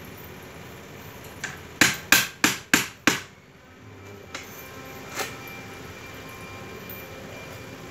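Hammer striking the wooden switch box: one light tap, then a quick run of five loud, sharp blows at about four a second with a brief ring after each, and two lighter taps a second or two later.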